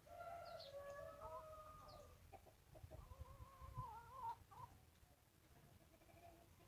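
Chickens calling faintly: a long drawn-out call of about two seconds, then a shorter wavering call about three seconds in.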